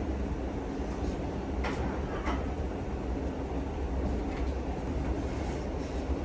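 Steady low background rumble of the gym room, with two brief sharp clicks close together about two seconds in.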